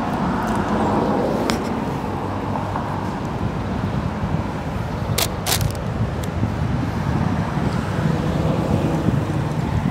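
Steady rumble of road traffic, with two sharp clicks about five seconds in.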